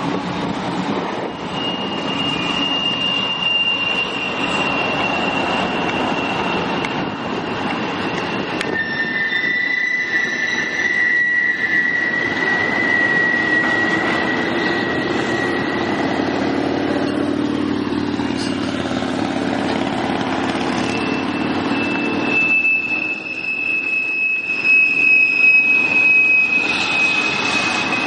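Double-stack intermodal container train rolling past: a steady rumble of steel wheels on rail. Long, steady, high-pitched wheel squeals come from about a second and a half in until about 16 s, and again for the last seven seconds.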